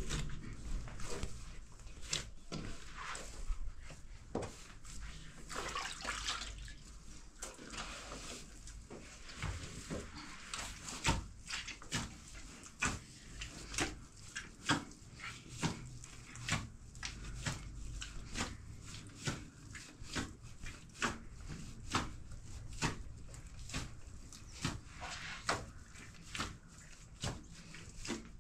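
A run of irregular knocks and taps, about one or two a second, over a low hiss, with a brief rustle about six seconds in.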